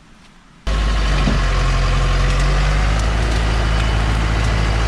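Loaded log truck's engine running steadily with a deep, even drone, which comes in suddenly less than a second in; before that only faint quiet sound.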